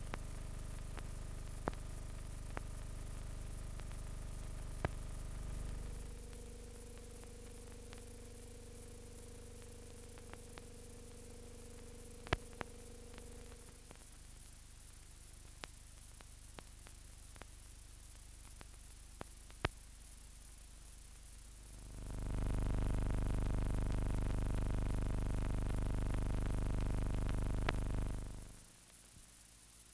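Slow background music of long held chords on an old film soundtrack, with scattered crackle clicks. A louder sustained chord swells in about three-quarters of the way through and then stops.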